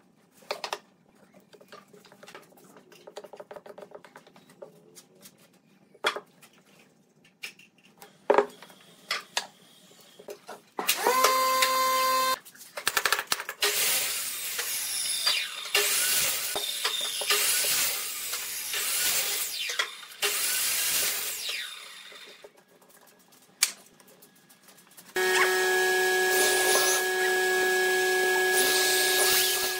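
Scattered knocks of wooden blocks being handled and set on a bench, then a long stretch of loud rough scraping noise. Near the end a corded electric drill starts and runs at a steady speed.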